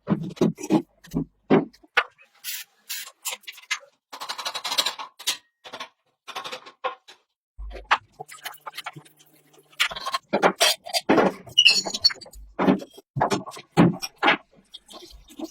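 Hand tools working on parts: an irregular run of knocks, clicks and scraping, in short spells broken by brief gaps.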